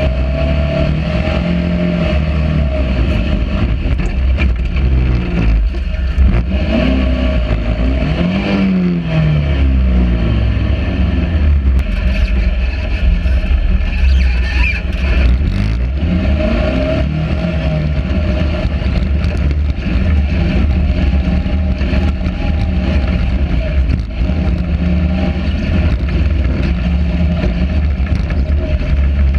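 Sand rail dune buggy's engine running hard under load, its revs rising and falling several times as it drives.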